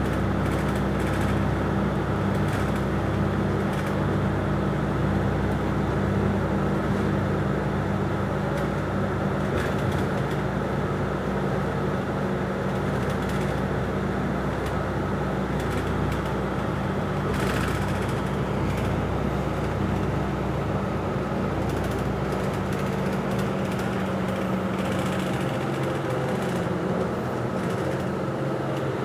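Bus engine and road noise from inside the cabin while cruising on a highway: a steady low hum with an even rumble of tyres.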